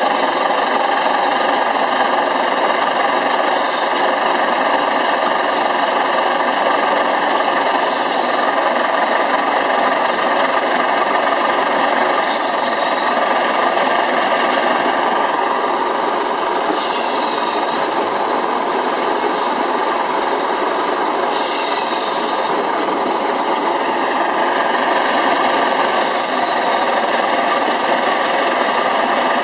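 Pence Bull Pup steam traction engine running steadily on its small steam shovel swing engine, which drives an early crossmount gas-tractor transmission. A brief higher sound recurs about every four to five seconds.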